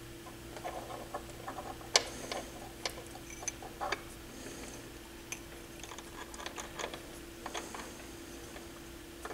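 Irregular small clicks and taps of a turntable's small drive motor being handled and reassembled, its metal case and parts knocking together in the hands, with the sharpest click about two seconds in. A steady low hum runs underneath.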